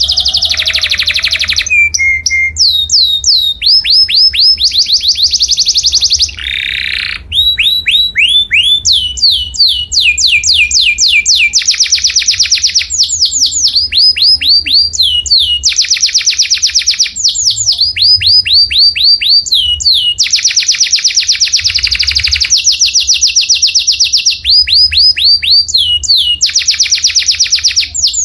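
Canary singing a long, continuous song made of phrases, each a rapid run of repeated, downward-sweeping whistled notes, switching to a new phrase every second or two. A steady low hum runs underneath.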